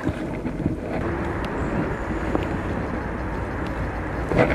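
Steady rushing noise with a few faint clicks, and a brief louder rustle near the end.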